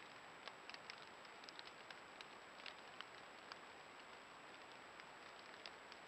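Faint night-time woodland ambience picked up by a trail camera's microphone: a steady hiss with a thin, high, constant whine, and scattered irregular light ticks, like drops or debris on dry leaves.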